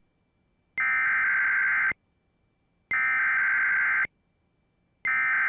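Emergency Alert System SAME header: identical bursts of digital data tones about a second long, with about a second of silence between them. Two full bursts sound and a third begins near the end. This is the coded header that opens a broadcast alert, here a winter storm warning.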